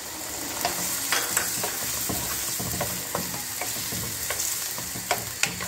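Chickpeas and boiled potato cubes sizzling in oil in a kadai while a wooden spatula stirs them, with scattered short taps and scrapes of the spatula against the pan.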